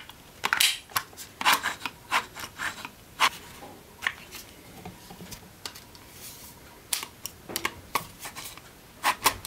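A black plastic guide attachment being pulled and unclipped from a mini circular saw's metal base plate, with irregular plastic clicks and knocks and rubbing in between. The saw is not running.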